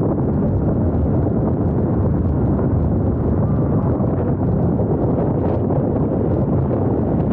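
Steady, loud wind buffeting the microphone of an Insta360 GO 2 action camera on a road bike riding at speed in a group, a low rumbling rush.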